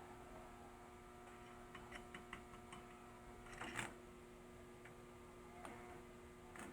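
Faint steady electrical hum with scattered light clicks, and a short scraping rustle about four seconds in.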